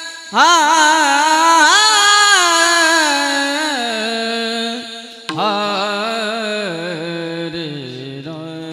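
A solo voice sings two long, ornamented melodic phrases in devotional kirtan style, without clear words. The pitch slides and wavers, and each phrase drifts lower; the second phrase starts about five seconds in.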